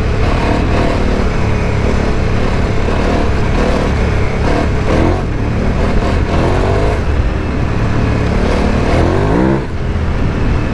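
KTM 990 Adventure R's V-twin engine running on the move, its pitch rising a couple of times as the throttle is opened, with a brief dip near the end. Steady wind noise rushes over the microphone underneath.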